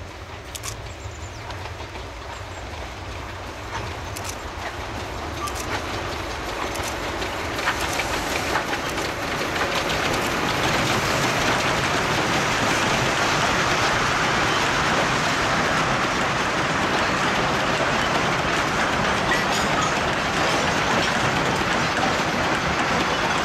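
Narrow-gauge coal train hauled by a C2 steam locomotive passing: loaded coal wagons rolling and clattering over the rail joints, growing louder over the first ten seconds, then steady.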